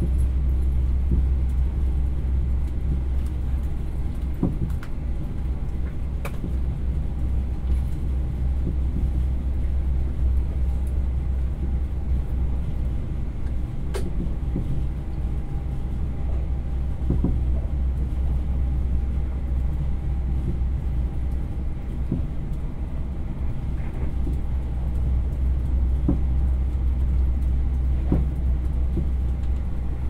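Steady low rumble of a moving train heard from inside the carriage, with a few sharp clicks and knocks now and then.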